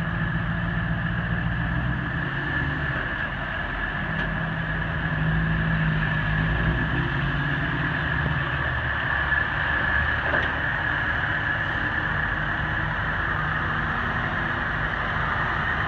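Heavy-duty diesel tow trucks (wreckers) rolling past slowly one after another, their engines running at low speed.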